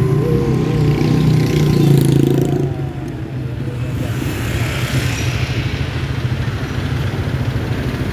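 A vehicle engine running loud and close. It eases off about three seconds in, leaving a steadier engine and street traffic noise.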